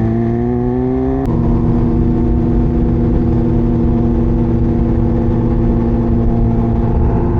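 Sport motorcycle's inline-four engine, a BMW S1000RR, pulling with rising revs, then a click about a second in as it shifts up. After the shift the revs drop and it runs steady at cruising speed, over wind noise.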